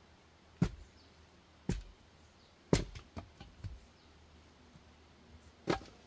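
Axe blows splitting firewood: four sharp strikes, the first three about a second apart and the last near the end, with a couple of lighter knocks after the third.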